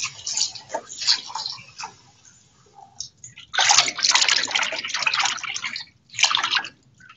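Water splashing and sloshing in a bowl in the kitchen sink as pickled mustard greens are rinsed by hand. About three and a half seconds in, a steady rush of water runs for about two seconds, then there is a shorter rush near the end, as the water is changed for the second rinse.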